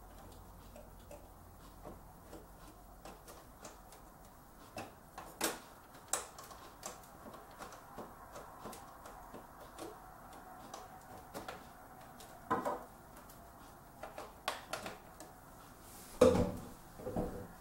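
Small scattered clicks and taps of a GeForce GTX 680 graphics card being handled and seated in a PC case's expansion slot, with a few sharper knocks and the loudest clack near the end.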